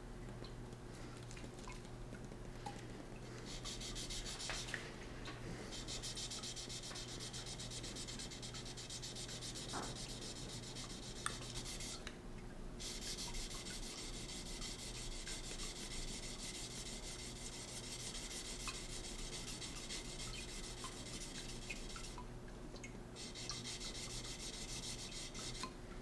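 Wet hand-sanding of a knife blade: a sanding block is rubbed back and forth over the steel blade flat under a trickle of water, in quick even strokes. It starts a few seconds in and pauses briefly twice.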